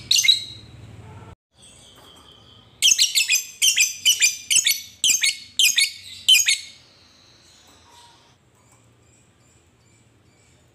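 Fischer's lovebird calling: a short shrill call at the start, then a fast run of about a dozen sharp, high-pitched chirps, about three a second, that stops about 7 seconds in.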